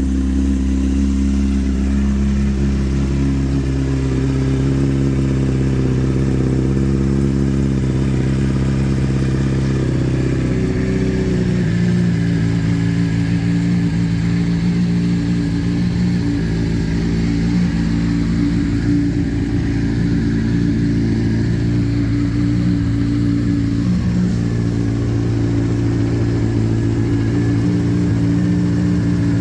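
2007 Honda CBR600RR's 599 cc inline-four running at a steady idle through an Arrow aftermarket exhaust, its note shifting slightly about eleven seconds in.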